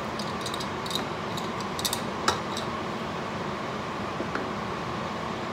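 A wooden spoon stirring thick sauce in a stainless-steel pot, with a few light taps and clicks in the first half, over a steady background hum.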